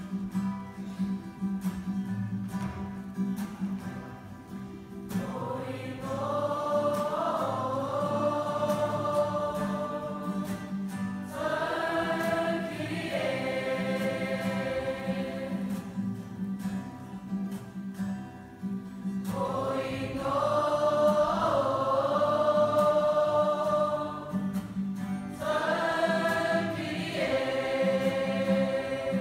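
A school choir singing with acoustic guitar accompaniment. The guitars strum alone for about the first five seconds, then the choir comes in with four long sung phrases, separated by short gaps where only the guitars carry on.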